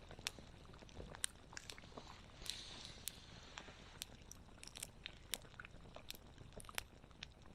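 Wood fire crackling, with irregular sharp pops and snaps, and a brief soft hiss about two and a half seconds in.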